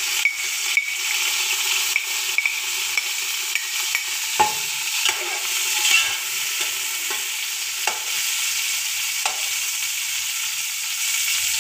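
Freshly added sliced red onions sizzling in hot oil, a steady frying hiss, while a metal spatula stirs them, clinking and scraping against the metal pot now and then.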